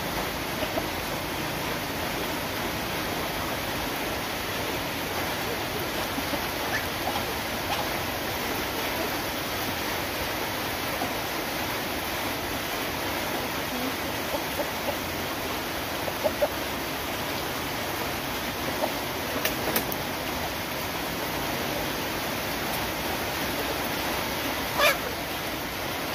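Steady rain falling, an even, continuous hiss. A few short sharp taps stand out now and then, the loudest near the end.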